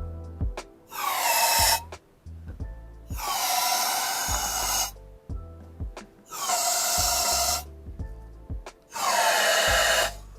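Four bursts of hissing from a can of compressed air, each about one to two seconds long, blown into the cylinder head's ports to see whether air bubbles past the valves into the water-filled combustion chambers, a check for valve leakage. An instrumental beat plays underneath.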